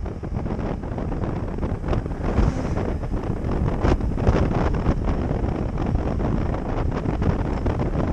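Heavy wind noise buffeting the microphone on a motorcycle moving at road speed: a dense, steady rushing with irregular gusts.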